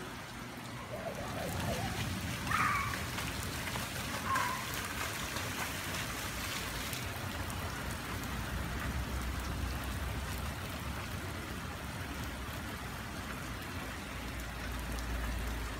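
Steady rain falling on pavement and puddles, an even hiss throughout. Brief children's voices come through about two and four seconds in, and a low rumble swells twice in the second half.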